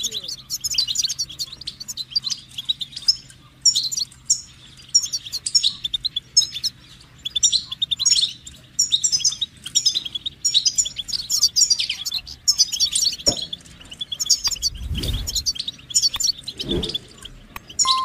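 European goldfinch singing: a fast, continuous run of high twittering, tinkling notes, dense for the first twelve seconds or so and sparser after. A few dull low thuds come in the last few seconds.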